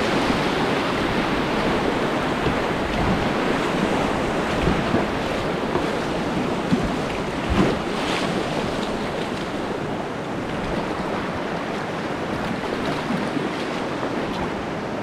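Whitewater rapids rushing around a kayak in a steady roar, heard close up from the boat, with a few brief louder splashes, the biggest about seven and a half seconds in. The roar eases a little in the last few seconds as the river flattens out.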